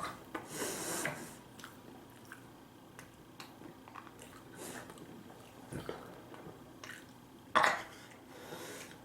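Eating at a table: scattered light clicks and taps of utensils on dishes with chewing noises, and one louder short burst of noise about seven and a half seconds in.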